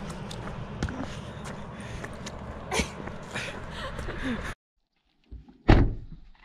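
Steady roadside traffic noise with scattered clicks and knocks, which cuts off abruptly; after a short silence, one loud sharp thump.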